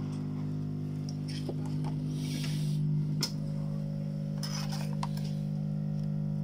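Steady low electrical hum with a few light clinks of small metal tools on the workbench, a brief hiss about two and a half seconds in and a sharp click about three seconds in.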